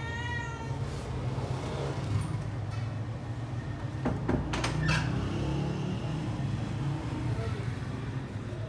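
A cat's meow trails off at the very start. It is followed by a steady low rumble like background traffic, with a few sharp clicks about four to five seconds in.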